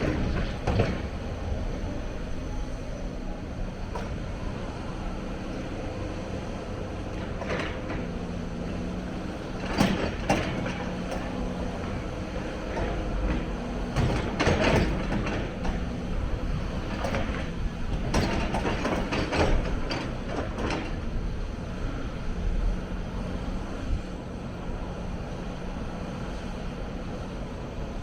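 Hyundai 290 hydraulic excavator at work: its diesel engine runs steadily while clanks and scrapes come at irregular intervals, most of them in the middle stretch.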